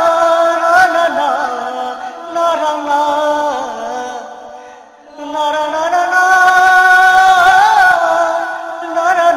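Film background music: a slow vocal line of long held, wavering notes, fading about four seconds in and swelling again a second later.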